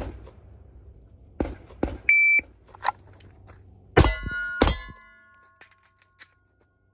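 A shot timer's start beep about two seconds in, then two pistol shots about two-thirds of a second apart. Each shot is followed by a lingering metallic ring of struck steel targets.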